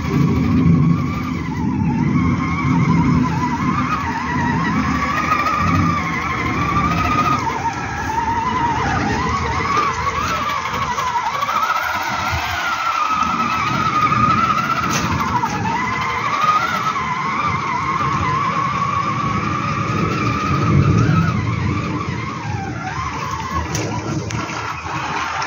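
Electric motor and gearbox of an RC scale crawler truck whining as it drives, the pitch rising and falling continuously with the throttle, over a rougher low noise from the tyres on the wet ground.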